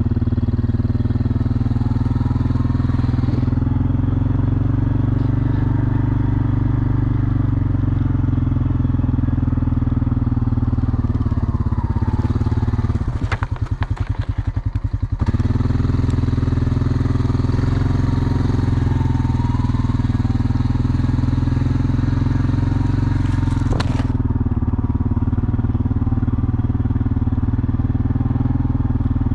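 An engine running steadily, its sound changing briefly about 13 seconds in before settling back to the same steady note.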